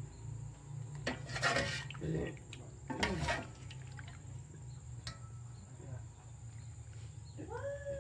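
Metal ladle scooping and pouring thick laksa gravy in a pot, with a few short sloshing splashes over a steady low hum. Near the end comes a short call that rises and falls in pitch.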